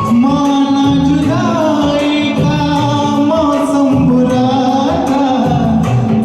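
Amateur singing of a Hindi film song over a karaoke backing track, with long held notes that glide between pitches.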